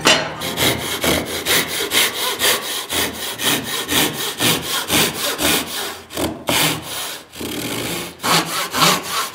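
Thin-bladed Japanese-style hand saw cutting across softwood 2x4s in quick, even strokes, about three a second. It pauses briefly twice after about six seconds, then resumes.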